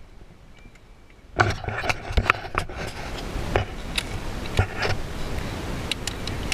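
Muffled rushing noise with irregular knocks and scrapes, starting about a second and a half in: handling and rubbing noise on a GoPro sealed in its waterproof case, which smothers the outside sound.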